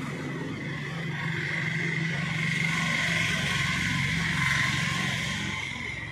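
A steady mechanical hum with a few held tones. It swells to a peak about four and a half seconds in, then eases off near the end.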